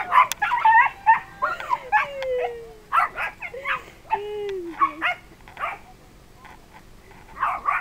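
Dogs barking and yelping as they scuffle with a duck, with a couple of drawn-out whines. The yelps come thick in the first three seconds, thin out, then come in one last burst near the end.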